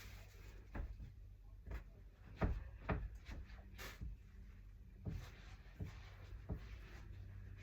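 Scattered soft knocks and clicks, about nine at irregular intervals, over a steady low hum in a small room.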